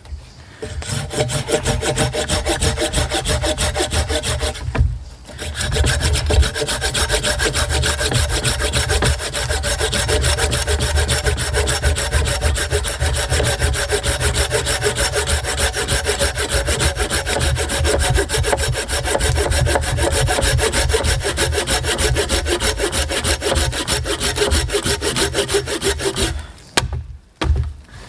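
Silky Gomboy folding pull saw cutting through a log of dry, very hard beech in rapid, steady strokes, with a short pause about five seconds in and another near the end.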